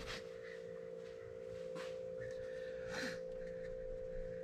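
A steady humming tone, with a few faint clicks of metal parts in an old fuse box being handled, about two seconds and three seconds in.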